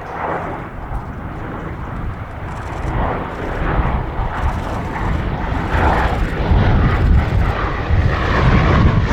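Bristol Blenheim Mk.I's twin Bristol Mercury nine-cylinder radial engines running in flight, growing steadily louder.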